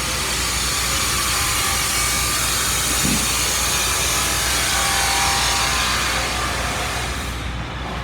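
Steady hissing mechanical shop noise, such as a running power tool, that cuts off about seven and a half seconds in.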